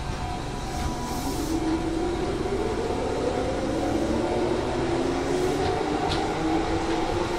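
Electric commuter train on the Tobu Tojo Line running by the platform, with a steady rumble and a humming motor whine that slowly rises in pitch. Brief hisses come about a second in and again near the end.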